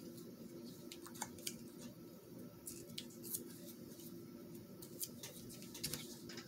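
Light scattered clicks and paper rustles as hands handle small paper scraps and a glue stick, pressing the scraps onto an index card, over a low steady hum.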